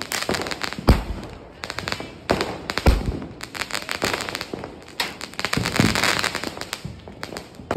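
Fireworks going off: dense crackling and popping with several sharp bangs. The loudest bangs come about one and three seconds in.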